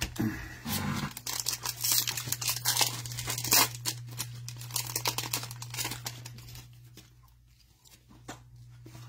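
Shiny foil wrapper of an Optic football trading-card pack being torn open and crinkled by gloved hands: a dense run of sharp crackles, loudest about three and a half seconds in, dying down to a few soft rustles after about six seconds.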